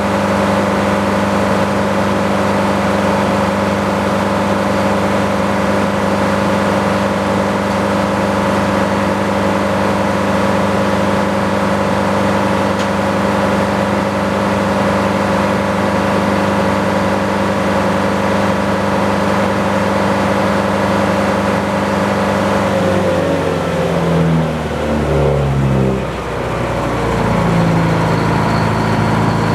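Sawmill's engine running at a steady high speed, then slowing with a wavering, falling pitch about three-quarters of the way in and settling to a lower idle near the end.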